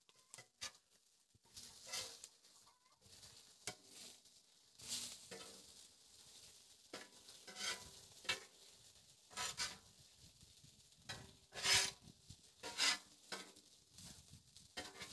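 Metal spatula scraping and tapping on a hot steel griddle top, in irregular strokes as burger patties and onions are turned, over a faint sizzle of the food frying.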